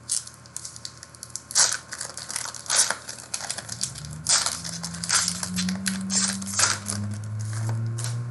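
Foil wrapper of a Panini Luminance football card pack being torn open and crinkled: a rapid, irregular series of sharp crackles and rustles.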